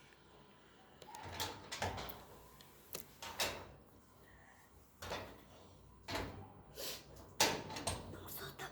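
A run of irregular sharp knocks and bumps, about nine or ten of them, with a low hiss between them.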